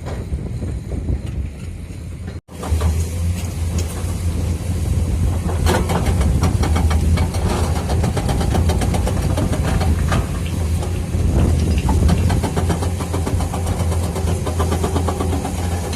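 Heavy diesel engine of a working excavator, running steadily under load with clanks and rattles over it. The sound cuts out for an instant about two and a half seconds in, then comes back louder and closer.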